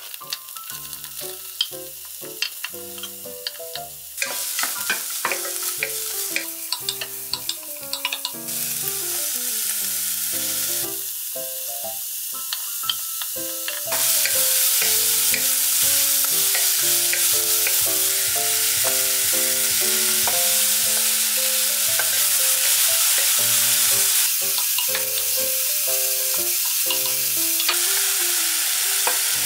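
Chopped vegetables sizzling in hot oil in a pot while a wooden spatula stirs them, with light scrapes and ticks. The hiss of frying grows louder in steps about four, eight and fourteen seconds in. Light background music with a melody plays throughout.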